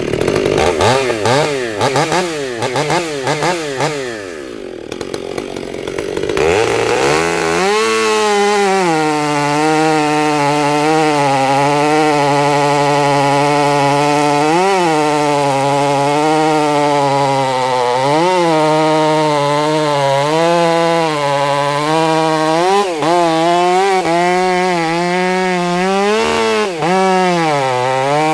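Chainsaw engine running: it changes pitch unevenly for the first few seconds, then holds at high revs, cutting wood, with the pitch sagging repeatedly as the bar bites into the log.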